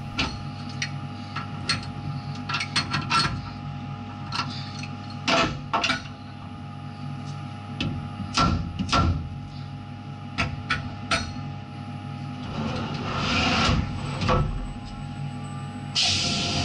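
A mallet tapping a steel workpiece down onto parallel strips in a machine vise to seat it: a string of sharp, irregular knocks, over the steady hum of the CNC milling machine. A stretch of scraping comes about two-thirds of the way through, and louder noisy bursts near the end.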